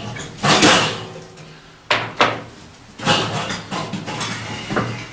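Handling of the stove's metal parts: scraping and clattering with two sharp knocks about two seconds in.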